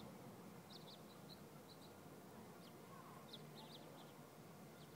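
Near silence with faint, short bird chirps every second or so, some in quick clusters of two or three.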